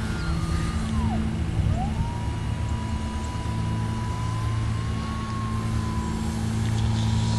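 A scratch-built RC plane's motor and propeller whining overhead. The whine drops in pitch about a second in, rises again just before two seconds in, then holds nearly steady, over a steady low hum.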